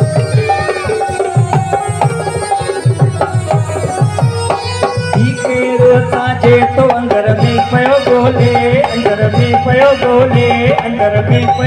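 Live music: tabla playing a steady, repeating rhythm, with a sustained melody line wavering above it.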